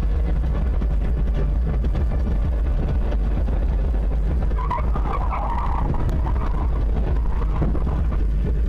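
Steady low road and engine rumble of a car driving, heard from inside the cabin through a dashcam. A brief, broken-up higher sound comes about five seconds in.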